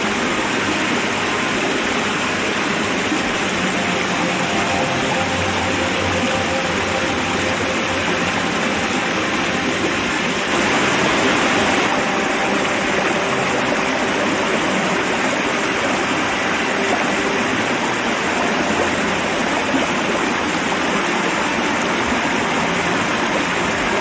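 Steady rush of a 15 m waterfall splashing into its pool and fast stream water pouring over rocks close to a binaural microphone. The sound steps up a little in loudness about ten seconds in.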